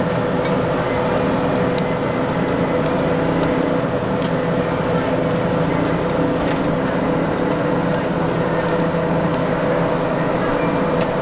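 Gas-fired grill burning under skewered squid: a steady hiss with a constant mid-pitched hum, a few light ticks of utensils on the grate, and faint voices in the background.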